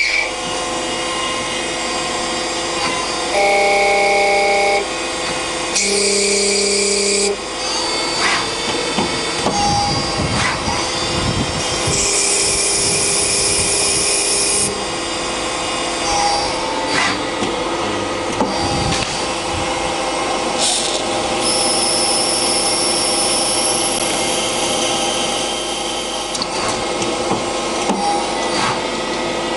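Mazak Quick Turn QT-6T CNC lathe running a cycle: a steady machine whine with tones that switch on and off, stretches of high hiss, and a few sharp clicks.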